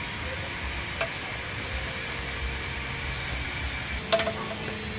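Light metallic clicks and clinks from a bicycle brake arm and its bolts being fitted to the frame: a small click about a second in and a sharper cluster of clinks just after four seconds, over a steady background hiss with faint ringing tones.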